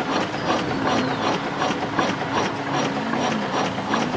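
Outboard motor's electric starter cranking the engine weakly without it firing, with a regular ticking about three times a second. Not enough power is reaching the starter through the long cables from the relocated battery.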